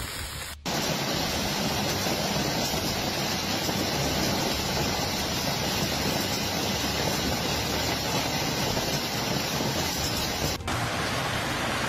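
Hailstorm: hailstones and heavy rain pelting down in a dense, steady hiss. It starts abruptly just after the opening and breaks off for a moment near the end before carrying on.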